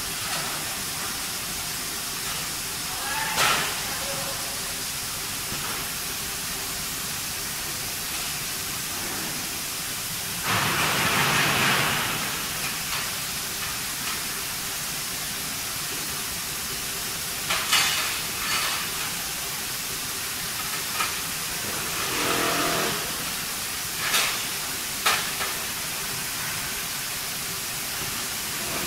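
Car-body assembly line running: a steady hiss of machinery, with a louder burst of hissing air about ten seconds in and several sharp metallic knocks scattered through.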